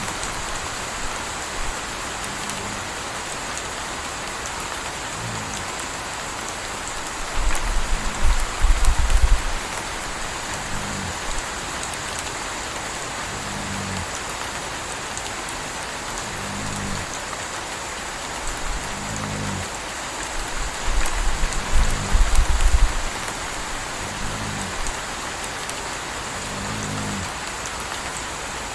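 Steady rain, with a puppy snoring in a slow, even rhythm, one snore about every three seconds. Twice a deep low rumble swells for a couple of seconds.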